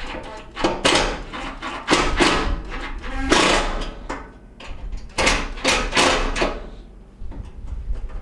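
Cordless drill-driver running in several short bursts with clicking and rattling as it drives the screws that hold the gas range's burner bases to the cooktop.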